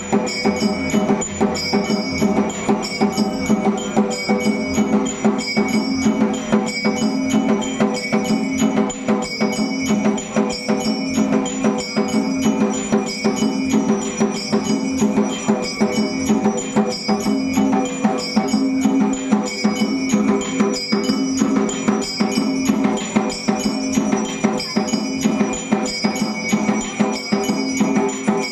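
Electric temple aarti machine playing: mechanically driven strikers beating bells and percussion in a fast, steady, repeating rhythm, with bells ringing on over the strikes.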